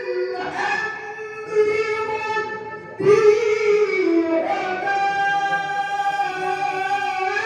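A male qari reciting the Quran in the melodic tilawah style. One high voice holds long, wavering notes, then breaks off and starts a new, louder phrase about three seconds in.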